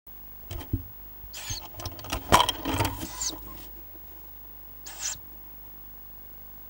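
Tawny owl chicks giving hoarse, hissing begging calls in a nest box, a run of them in the first three and a half seconds and one more about five seconds in. Mixed with knocks and scrabbling on the box's wood, the loudest thump about two and a half seconds in.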